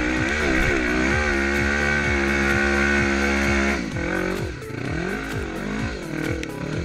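Yamaha Raptor 350 quad with a swapped-in Honda CB500 parallel-twin engine, revving up and held at high revs for about three seconds, then dropping off about four seconds in and blipping up and down as it rides on. A music track with a steady thumping beat runs underneath.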